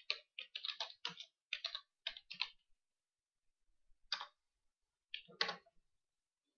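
Typing on a computer keyboard: a quick run of about a dozen keystrokes over the first two and a half seconds, then a pause and a few more single clicks about four and five seconds in.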